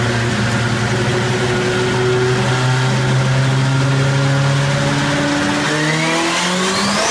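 Turbo-compound drag-bike engine running on a dyno at a steady pitch, then revving up in the last second or two as a thin whine from the turbine rises steeply in pitch.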